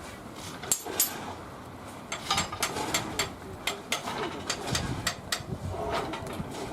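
Steam locomotive moving slowly during shunting: irregular metallic clanks and knocks, with a low rumble building in the second half.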